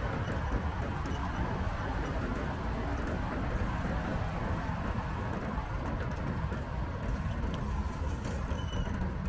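Steady outdoor noise of wind rumbling on the microphone of a moving bicycle, over a hiss of road traffic.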